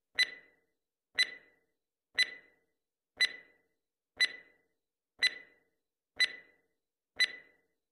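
Stopwatch countdown-timer sound effect: a sharp tick with a brief ringing tone, once a second, eight times.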